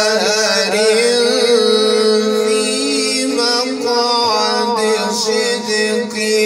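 Male qari reciting the Quran in a melodic chanted style, holding one long ornamented phrase whose pitch wavers up and down without a break.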